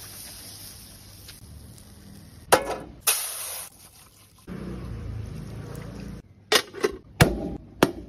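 Crown daisy greens sizzling as they are stirred in a wire-mesh strainer over charcoal, then two sharp knocks. Water is then poured into an aluminium mess tin of rice, and a few short metal clinks follow as the tin is handled and its lid goes on.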